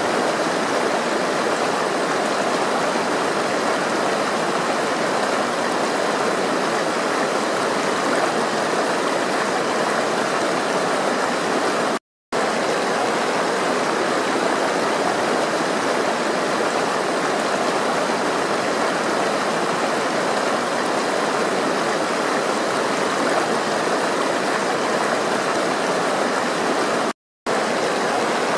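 Flowing water rushing steadily, a dense, even splashing like a stream. It cuts out to silence for a split moment twice, about halfway through and near the end, as at loop joins in the recording.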